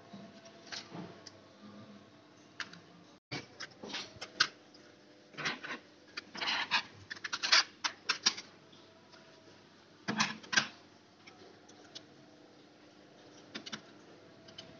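Irregular clicks and clatters of small plastic and metal parts being handled: a laptop's slim optical drive being slid out of its bay and handled against a metal 2.5-inch drive caddy. The clicking is busiest in the middle, with a few light clicks near the end.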